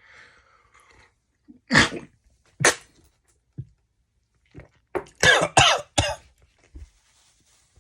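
A person coughing hard after a drink of vodka with cayenne pepper: two harsh coughs about a second apart, then a fit of several quick coughs about five seconds in.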